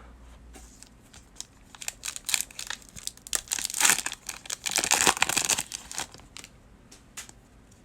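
Foil wrapper of a Topps baseball card pack being torn open and crinkled by hand, a crackly run of crinkles that is thickest midway through and then thins out.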